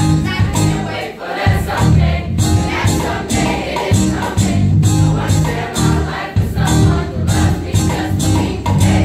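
A middle school choir and a girl soloist singing a pop song, the soloist into a handheld microphone, over music with a steady, bass-heavy beat.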